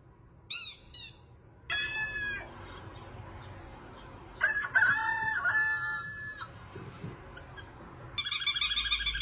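A string of high-pitched calls or squeaks: two short chirps, then longer wavering pitched calls about two seconds in and again around five seconds in, over a steady high hiss, and a rapid pulsing call near the end.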